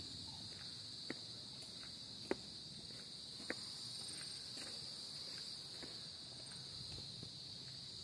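A steady, high-pitched insect chorus, with a few sharp clicks of footsteps on a concrete sidewalk, about one every second or so, in the first half.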